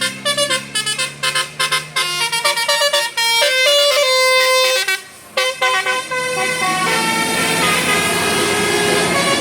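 Telolet Basuri musical air horn on a tour bus playing a quick melody of short, pitched notes, with a brief break about five seconds in. About six and a half seconds in the horn tune ends and a steady rush of noise takes over.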